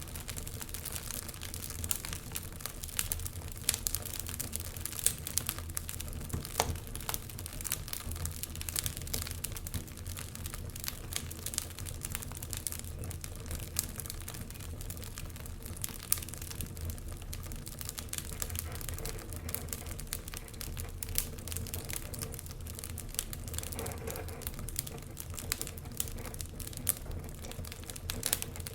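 Wood fire burning in a fireplace: irregular crackles and pops over a steady low rumble.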